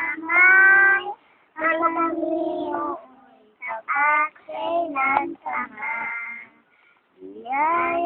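A girl singing solo and unaccompanied, in phrases of held notes broken by short pauses for breath.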